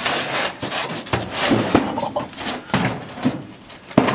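Stone being chipped away from a wall by hand tools: a string of irregular sharp knocks, the sharpest one near the end.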